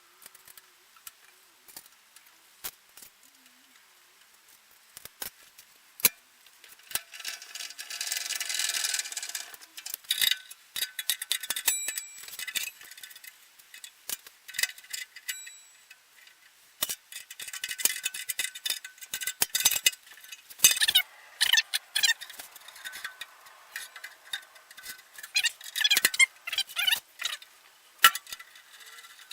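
Metal parts and hand tools clinking, clicking and rattling in irregular bursts as steel table-saw components are handled and fitted, typical of fitting a riving knife.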